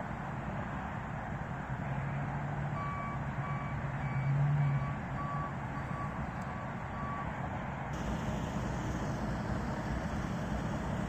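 Backup alarm of a hi-rail pickup truck beeping at a steady pitch, about two beeps a second for some four seconds, over a steady low engine rumble. Near the end the background changes abruptly.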